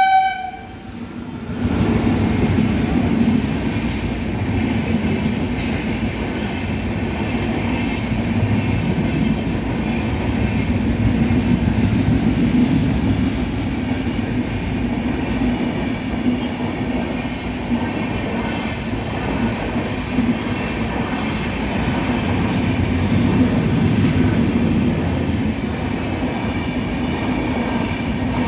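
Railway train running along the track: a steady, loud rumble of wheels and carriages that sets in about a second and a half in and carries on without a break.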